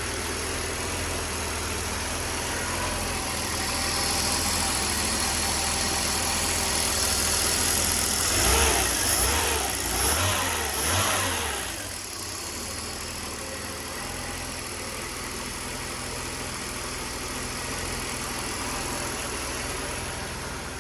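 Mercedes M103 3.0-litre straight-six running steadily on Megasquirt injection with a slight intermittent stumble, a misfire the owner has not traced. About halfway through it is revved three times in quick succession, then settles back to steady running.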